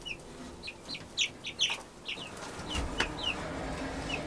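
Young chicks peeping: short, high, downward-sliding chirps, repeated irregularly. A single light knock comes about three seconds in.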